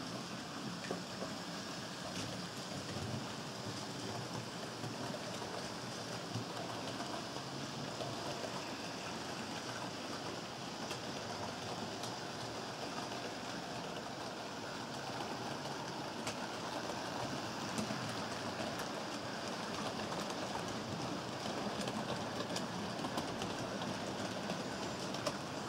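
HO-scale model trains running on the layout: a steady whir of their small motors and wheels rattling along the track, with scattered small clicks.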